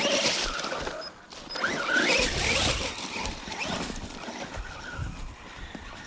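Electric RC car driving fast: a motor whine rising and falling with the throttle over tyre and ground noise, dropping off briefly about a second in.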